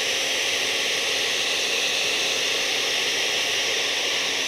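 Countertop blender running steadily, pureeing hot carrot soup; a loud, even whirring with no change in speed.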